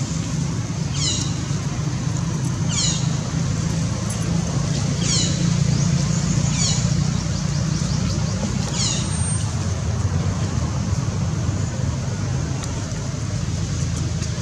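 Steady low drone of motor traffic, with a short high call that falls in pitch repeating five times, about two seconds apart.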